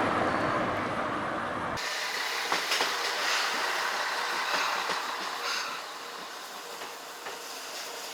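Steam-hauled SL Moka passenger train running along the line, a steady rushing noise with scattered clicks from the wheels and rails. About two seconds in the deep rumble drops away abruptly, and the sound eases off somewhat later on.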